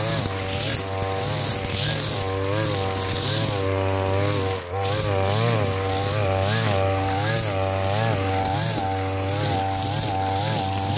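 Petrol brush cutter running at high speed while cutting grass, its engine note dipping and rising again about once a second as the cutting head swings through the growth and takes on load. The level drops briefly a little under halfway through.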